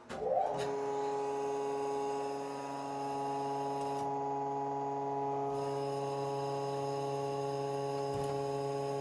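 Hydraulic pressurizing test machine switching on: a click and a short rising whine as its motor comes up to speed, then a steady running hum.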